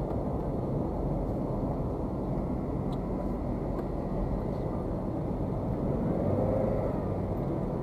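Steady road and engine noise of a car driving at speed, heard from inside the cabin.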